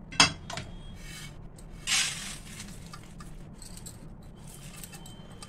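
Roasted melon seeds poured from a non-stick pan onto a steel plate: a sharp knock of the pan against the plate, then about two seconds in a brief rush of seeds sliding onto the steel, followed by faint scraping and ticking as the last seeds are pushed out.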